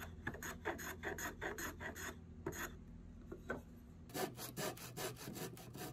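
Small wooden-bodied hand plane taking short strokes over Douglas fir, its blade shaving the wood with a dry scrape. The strokes come about two or three a second at first, then quicken past the middle.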